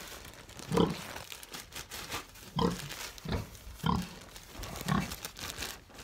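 A livestock animal grunting in short bursts, about five times, spaced irregularly.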